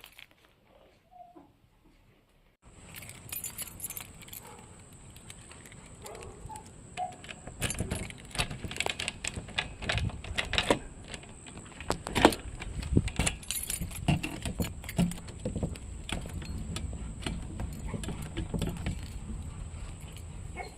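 Keys jangling and clinking, with many small clicks and knocks. The sound starts suddenly about two and a half seconds in, after near silence, and grows busier. A steady high-pitched tone runs under it.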